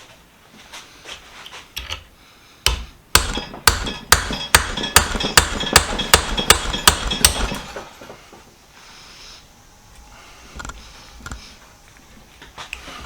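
Hammer tapping a steel pin punch to drive the cross pin out of a small metal hand vise: a quick run of about fifteen sharp metallic blows, three or four a second, with a light ring. The blows come about three seconds in and stop after about five seconds; lighter knocks and handling follow.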